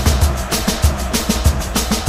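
Music with a driving drum beat, strong low kick-drum thumps several times a second.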